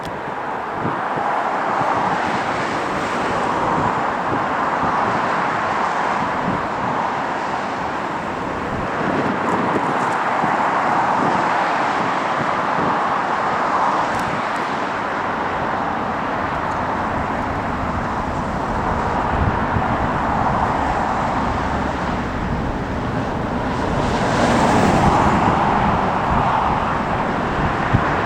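Steady roar of jet aircraft noise with strong wind buffeting the microphone in low rumbles; the roar swells louder near the end.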